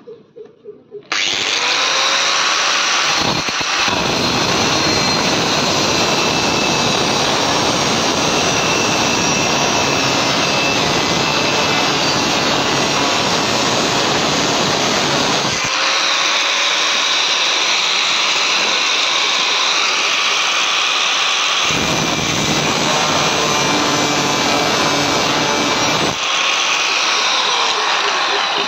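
Corded angle grinder switched on about a second in and cutting steel with an abrasive disc: a loud, steady motor whine over a grinding noise. The deeper grinding drops away twice, past the middle and near the end, leaving mostly the motor's whine.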